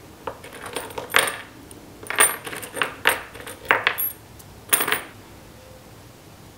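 Small steel hex bolts, lock washers and keys clinking as they are handled and set down one by one on a hard surface: a run of light metallic clicks and chinks with a brief high ring, stopping about five seconds in.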